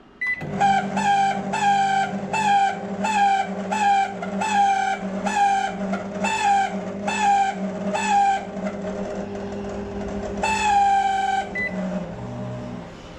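LG microwave oven starting with a short beep, then running with a steady hum while a high, slightly falling squeal repeats about every two-thirds of a second. The last squeal is longer, and the oven stops with another short beep near the end.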